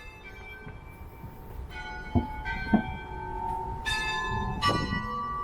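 St Pierre Cathedral's carillon being played: bells struck one after another at different pitches, each note ringing on under the next, growing louder as more notes come in. Two dull knocks sound about two seconds in.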